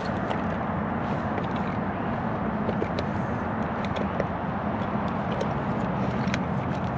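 Steady, unbroken hum of city traffic, with a few faint ticks now and then.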